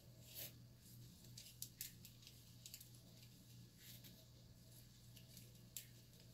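Faint rustling with a few short, sharp crackles as fingers with long nails work through micro box braids, over a low steady hum.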